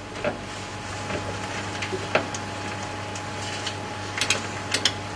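Quiet pause in a stage performance: a steady low hum and hiss with a scattering of small, sharp clicks and knocks, a few of them bunched together near the end.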